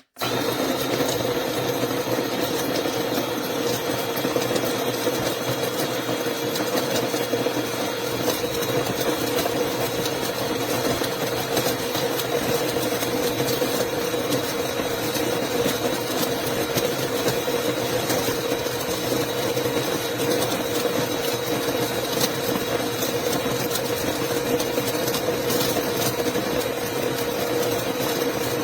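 Electric conical burr coffee grinder running steadily, a continuous motor hum with a grinding rasp, starting abruptly.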